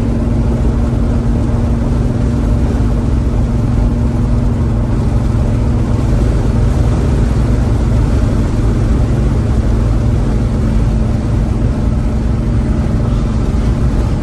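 1971 Chevrolet Chevelle V8 engine running steadily at an even speed, with no revving and an unchanging low drone.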